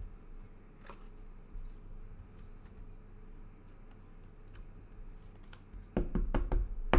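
Hands handling baseball trading cards and their packs on a table: scattered soft clicks and rustles, then a run of louder knocks and thuds near the end.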